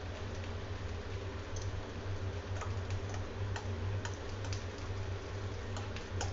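Light, irregular clicks and taps of a glass sauce bottle being shaken and tipped against a burger bun on a plate, over a steady low hum.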